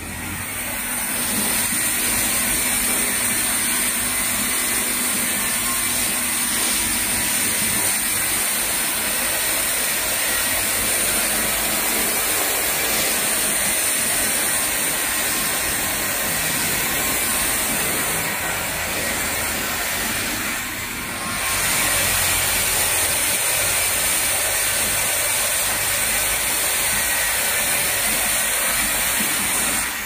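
Clamping-type bottle rinsing machine running: a steady mechanical hiss with a faint high whine, dipping briefly about twenty seconds in, then slightly louder.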